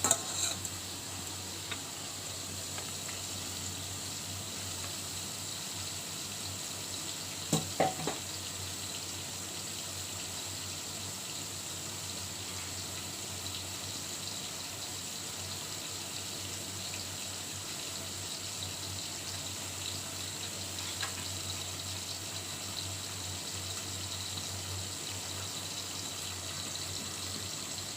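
Pot of vegetables in water boiling hard under its lid on the stove, giving a steady hiss, with a brief clatter about eight seconds in.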